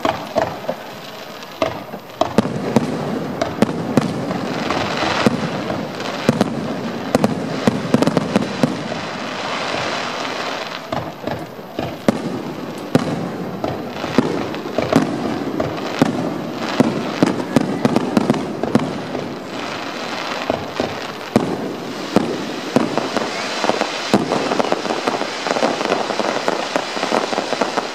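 Aerial fireworks display: a rapid, nearly continuous string of shell bursts and crackling bangs, beginning about two seconds in.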